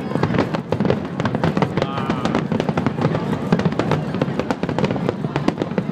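Aerial firework shells bursting in a dense, rapid run of bangs and crackles, many reports every second with no let-up.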